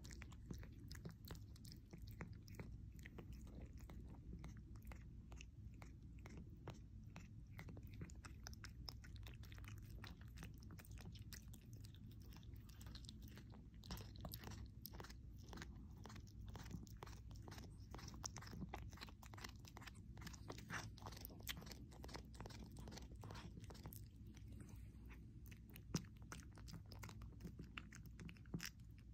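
Mother cat chewing and eating the placenta after giving birth: faint, rapid, wet chewing clicks that thin out near the end.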